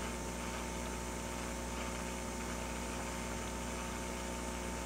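Hot-air rework station blowing steadily through its nozzle while it reflows solder paste: an even hiss with a faint steady hum.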